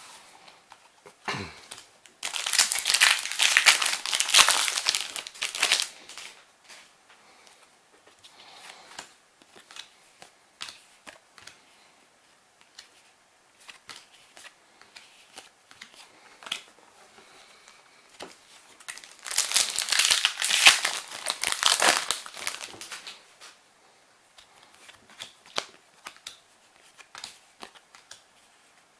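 Foil Yu-Gi-Oh booster packs being torn open and crinkled, two loud stretches about a quarter of a minute apart, with quiet ticks of cards being handled in between.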